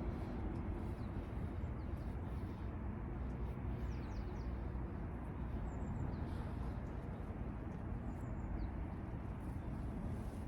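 Outdoor ambience: a steady low rumble, with a few faint, short, high bird chirps in the middle.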